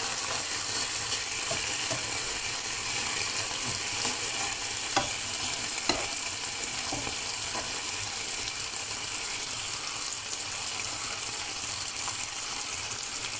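Beef fillet medallions sizzling steadily in hot oil in a frying pan, with a couple of small pops midway.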